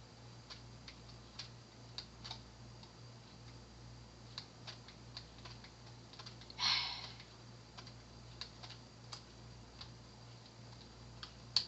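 Scattered light clicks of computer keyboard keys at irregular intervals over a steady low hum, with one short hiss about seven seconds in.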